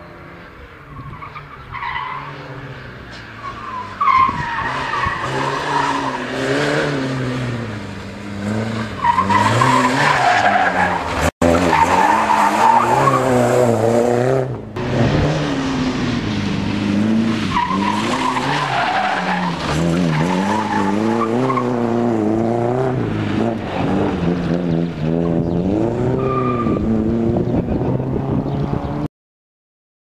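Rally car engines driven hard on a loose dirt stage, revving up and dropping back again and again through the gears, with tyre noise on gravel. The first car grows louder as it approaches; after a brief break about 11 s in, another run follows, and the sound cuts off about a second before the end.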